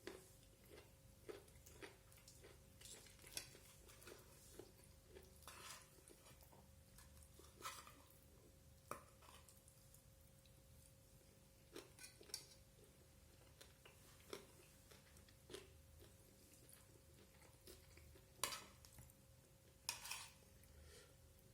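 Faint eating sounds: scattered light clicks of cutlery against a plate, mixed with chewing, over a low steady hum.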